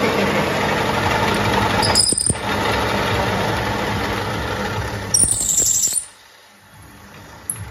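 Pillar drill running as its bit bores into a steel angle bar, with two short high squeals from the bit cutting the steel, about two and about five seconds in. The noise drops away suddenly about six seconds in.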